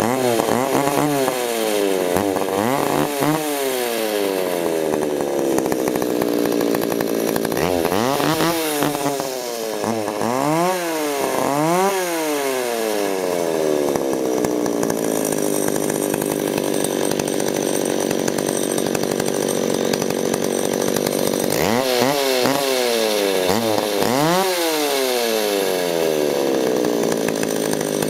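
McCulloch 650 Pro two-stroke chainsaw engine running without bar or chain, revved up and down in repeated bursts of throttle with steady idling between them. It is a test run on a freshly fitted clutch rim sprocket.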